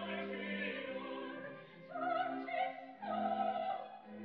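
Opera music: a singer holding long notes over an orchestra, the notes changing about once a second.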